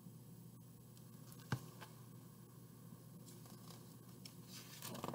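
Quiet room tone with one sharp click about a second and a half in, then a short run of paper rustling and scraping near the end as a large hardcover picture book is lowered and its page turned.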